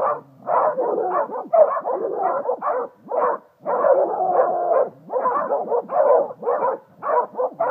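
A pack of small hounds, beagle-type dogs among them, barking and baying in quick, overlapping bursts at a wild boar held at bay, with a few brief pauses.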